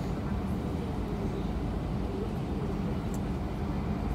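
Airbus A320 cabin noise while taxiing: a steady low rumble of the engines at taxi power and the wheels rolling on the taxiway.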